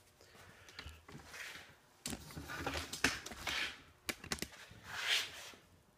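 Close rustling and scattered sharp clicks of hand handling, with cloth rubbing in short hissy swells.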